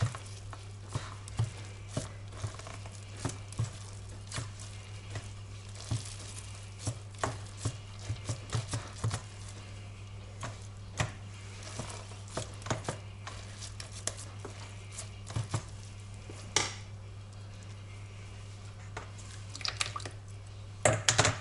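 A wooden spatula pressing a cheesecloth bundle of cooked curd against a stainless-steel colander, then hands squeezing the cloth to force out the whey: scattered light knocks, scrapes and cloth rustling, over a steady low hum.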